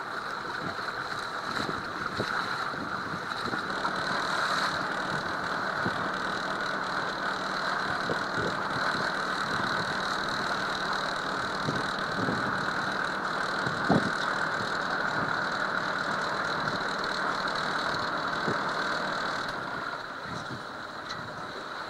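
Boat engine running steadily, heard from on deck, with a few short knocks, the sharpest about fourteen seconds in.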